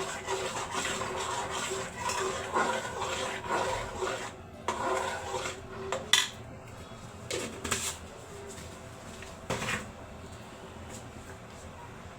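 A utensil stirring and scraping in a pan of tomato sauce, mixing in salt, with a few separate knocks against the pan; the sharpest knock comes about six seconds in and the last two seconds are quieter.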